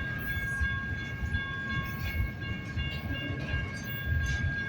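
Intermodal freight train rolling past, a steady low rumble of cars on the rails.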